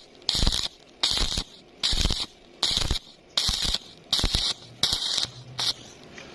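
Electric arc welding in short bursts, the arc crackling for about a third of a second, then breaking off, eight times in a steady rhythm.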